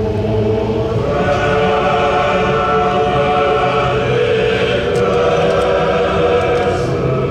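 A choir singing, several voices holding long notes together; the sound fills out about a second in.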